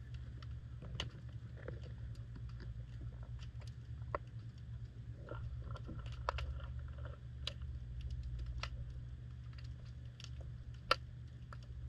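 Underwater audio from a GoPro in its waterproof housing on the seabed: a steady low rumble with irregular sharp clicks and crackles, one louder click near the end.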